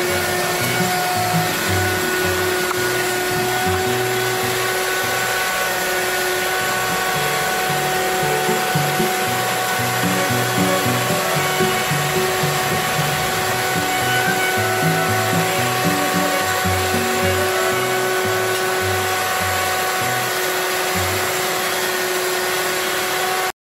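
Background music with a low bass line moving in short steps, over a steady machine-like hum and hiss. It cuts off abruptly just before the end.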